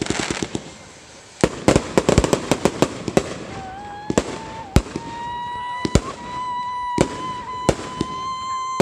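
Fireworks going off: rapid runs of crackling bangs, then single sharp bangs. From about three and a half seconds in, a long whistle rises slightly and then holds steady to the end.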